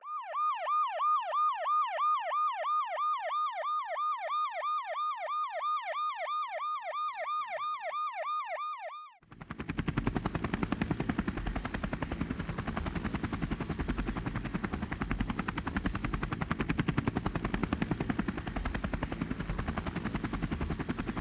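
A toy's electronic siren yelping, rising and falling about three times a second. After about nine seconds it stops, and the electronic rotor sound of a Speed Track toy rescue helicopter follows: a fast, steady chopping rattle.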